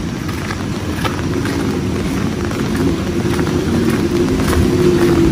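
A motor vehicle's engine running close by, its hum growing louder toward the end, over steady rain.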